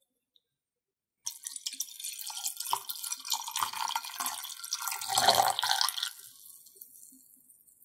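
Soy-sauce marinade poured in a thin stream over salmon roe in a glass container, splashing and trickling. It starts about a second in, is loudest near the end of the pour, then trails off.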